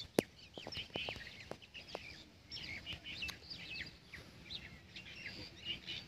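Several small birds chirping and calling, many short high notes and quick whistled sweeps overlapping throughout. A few sharp clicks sound in the first two seconds.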